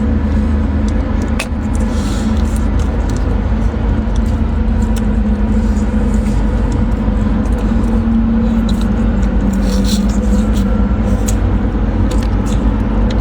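Mantis shrimp shells being cracked and peeled by hand: scattered short clicks and crackles. They sit over a loud, steady low rumble.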